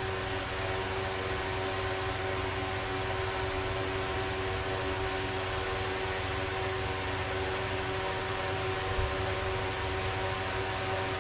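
A machine running steadily: an even hum with several constant tones over a hiss, unchanging throughout.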